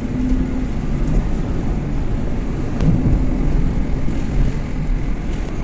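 A car driving, a steady low engine and road rumble heard from inside the cabin.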